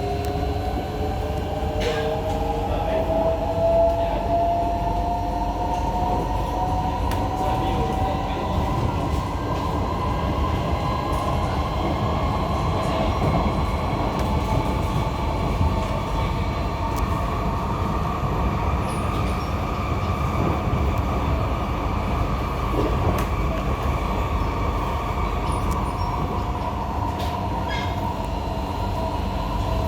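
C151A MRT train heard from inside the carriage while running between stations: a steady low rumble, with a whine that climbs in pitch over the first ten seconds or so and then holds steady.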